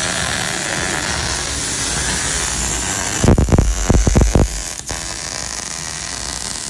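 Welding on a 1965 Cobra axle: a steady hiss. About three seconds in it is broken by a second or so of loud, low thumps, and then the hiss carries on a little quieter.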